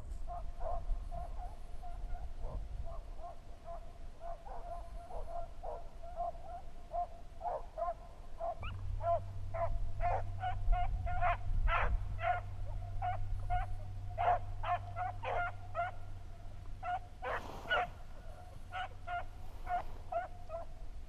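Pack of beagles baying on a rabbit's scent trail: short repeated cries that come faster and louder from about eight seconds in, with a low rumble underneath.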